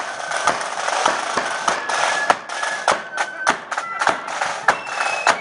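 Marching flute band playing a tune: flutes holding high notes that step from one pitch to the next, over a steady beat of bass drum and drums.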